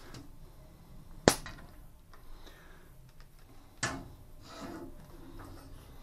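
Handling noises of a bicycle wheel and a hose-fed tyre inflator on a wooden workbench. A sharp snap comes a little over a second in and a knock at about four seconds, with quieter scraping between.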